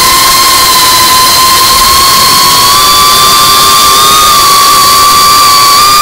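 Geprc Cinelog35 FPV drone's brushless motors and ducted propellers whining steadily at high throttle, the pitch creeping slightly upward, over a constant hiss. Heard close up from the camera mounted on the drone.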